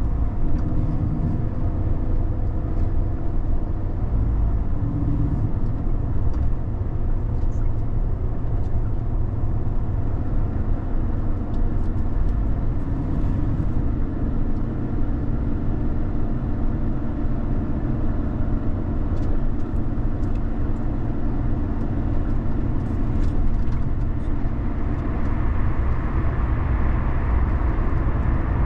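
Car driving along a road: a steady engine drone under continuous tyre and road noise, which grows brighter and louder near the end.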